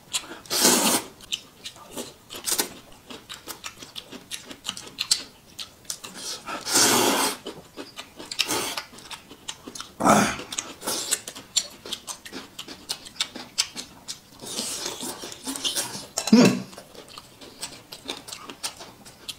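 Close-miked eating: noodles slurped in several loud, noisy bursts over a steady run of wet chewing and crunching of cucumber and boneless chicken feet.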